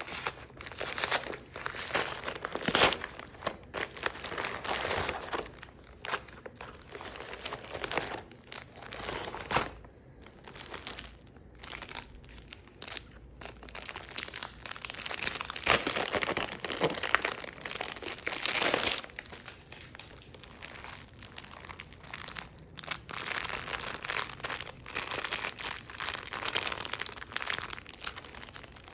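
Plastic packaging crinkling and crumpling as it is handled and torn open, in an irregular run of sharp crackles.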